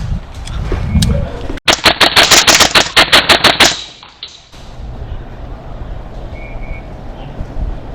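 Airsoft gun firing a full-auto burst of rapid sharp shots, lasting about two seconds and starting a second and a half in. A low rumble comes before the burst.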